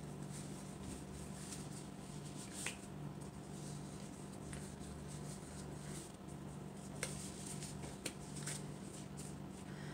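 Faint crinkling and a few small sharp snaps of thin clear plastic disposable gloves being pulled onto the hands, over a low steady hum.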